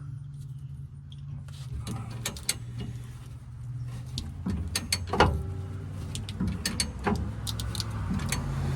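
Irregular metal clicks and knocks of a hand tool working at stubborn, stuck bolts on a truck's spare tire winch, the loudest knock about five seconds in, over a steady low hum.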